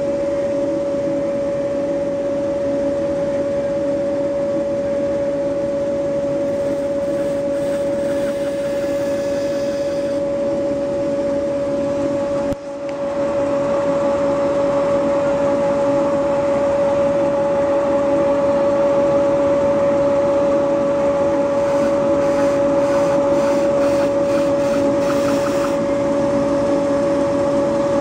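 Large knife-grinding wheel running with a steady, high-pitched motor hum while a knife blade is sharpened against it, with short scratchy rasps of the steel on the wheel near the end.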